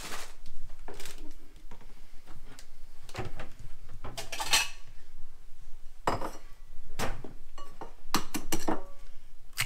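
Kitchen dishes and utensils clattering: a string of separate knocks and clicks, with a ringing clink about four and a half seconds in and a quick run of knocks near the end.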